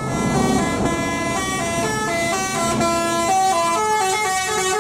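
Bus 'telolet basuri' melodic horn playing a quick tune, the notes stepping up and down every fraction of a second with several tones sounding together, over the bus's engine rumble.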